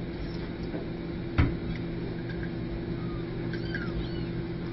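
Faint, short, high squeaks of newborn kittens over a steady low hum, with a single sharp knock about a second and a half in.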